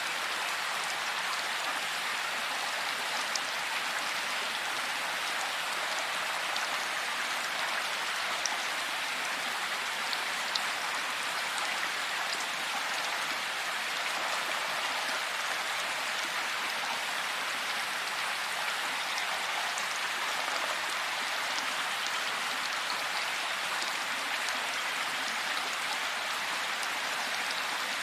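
Heavy rain falling steadily: an even hiss, with a few sharp drop ticks here and there.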